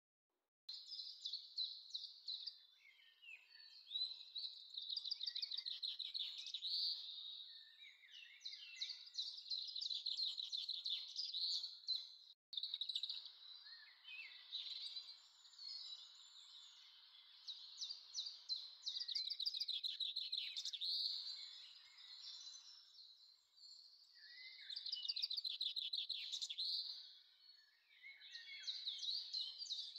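Birdsong: small birds chirping and trilling in quick, repeated high-pitched phrases, several overlapping, with brief breaks. A faint hiss sits under it for a stretch in the middle.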